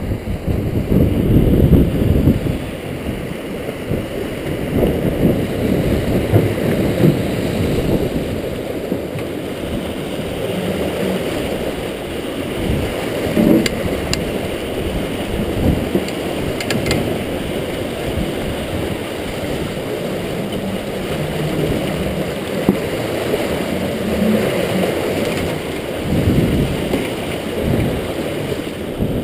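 Rushing river water churning and splashing through a rotary screw fish trap's turning cone, with wind buffeting the microphone.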